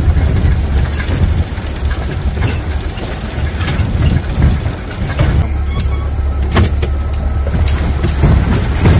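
Jeep running as it drives slowly over a rough dirt trail: a steady low engine rumble, with sharp knocks and rattles now and then as it bumps along.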